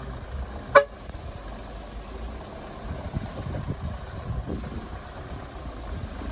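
Loaded sugarcane truck's engine running low as it drives slowly along a rutted dirt track, with one short, loud horn toot under a second in.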